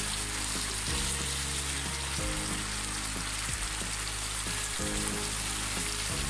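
Boal (wallago catfish) steaks frying in oil and spice paste in a wok, with a steady sizzle. Background music of low held notes plays along, changing every second or two.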